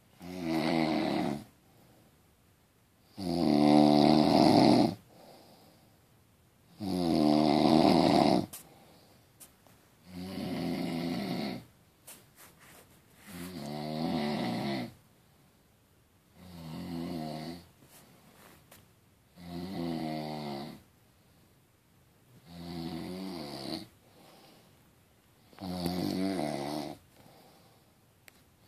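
A sleeper snoring in a steady rhythm: about nine pitched snores, each one to two seconds long, coming roughly every three seconds with near quiet between them. The snores around four and seven seconds in are the loudest.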